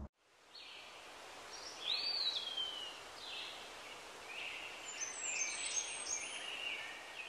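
Birds calling and singing: scattered chirps and whistled notes over a faint steady hiss of outdoor ambience, with one clear downward-sliding whistle about two seconds in.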